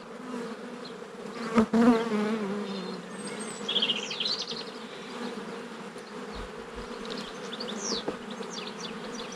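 Honeybees buzzing around an open hive: a steady hum, with one louder buzz about one and a half seconds in that sinks in pitch over the next second as a bee passes close.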